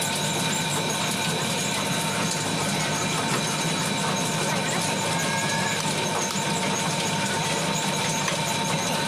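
Steady engine-like background noise with a constant high whine, unchanging throughout.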